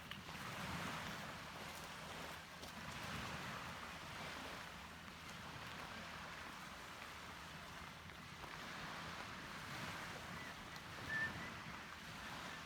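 Sea waves washing in with wind, a faint rushing that swells and eases every second or two. A brief bird call sounds near the end.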